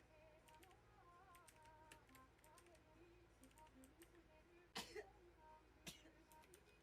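A young woman sneezing twice, about a second apart, the first sneeze the longer, over faint keyboard typing.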